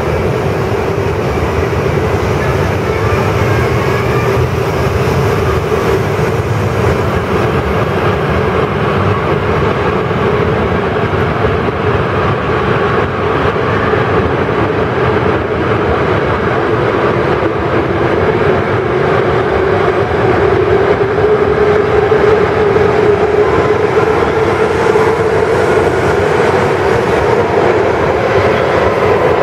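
E5 series Shinkansen departing and rolling past, a steady rumble with a hum that edges up in pitch and grows a little louder about two-thirds of the way through as the train gathers speed.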